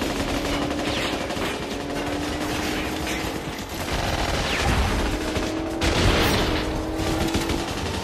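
Sustained automatic rifle fire from several rifles at once, a dense fusillade that peaks in the middle, with rounds striking a car's windscreen and body.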